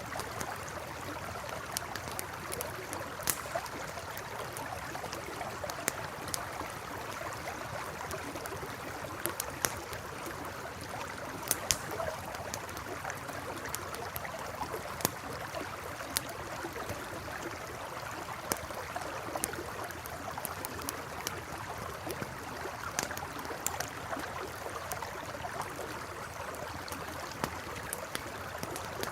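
A steady rush of flowing river water, with a campfire's crackles and sharp pops scattered irregularly over it.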